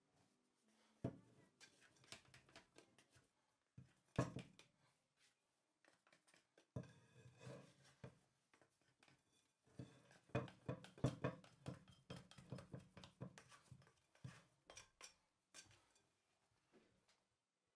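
Hands working whole-grain bread dough in a glass mixing bowl: scattered soft knocks, taps and scraping as the dough is pushed and scraped loose, with a few sharper knocks of the bowl against the countertop. There is a busier stretch of quick taps and rubbing in the middle.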